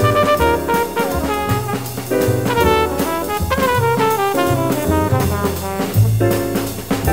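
Background jazz music with brass horns playing quick falling runs over bass and drums.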